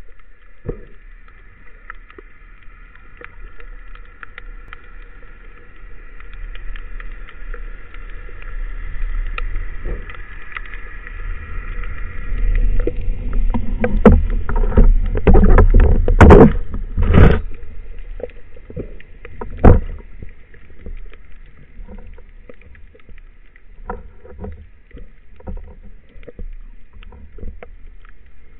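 Underwater sound on a speargun-mounted camera: a faint steady high hum for the first dozen seconds, then a cluster of loud knocks and rushing water from about 14 to 17 seconds while a speared sea bass struggles on the shaft line. A single sharp knock follows a few seconds later, then scattered small clicks.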